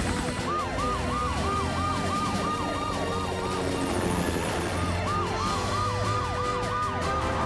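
Emergency-vehicle sirens in a fast rise-and-fall yelp, about three sweeps a second, two sirens overlapping at slightly different pitches.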